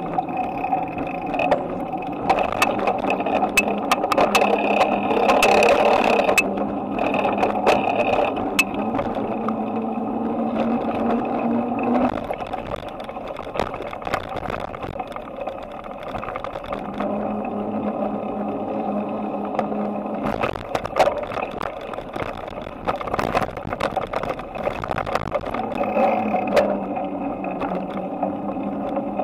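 Bicycle riding along: a steady rolling hum with frequent rattles and clicks from the handlebar-mounted camera jolting over the road.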